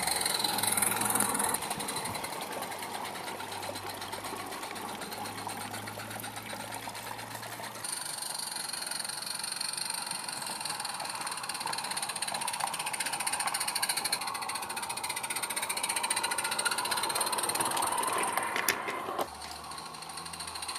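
A 16mm-scale live-steam Roundhouse Jack locomotive running along garden track: a fast, even exhaust beat mixed with the rattle of its wheels and train on the rails, with the level jumping abruptly a few times.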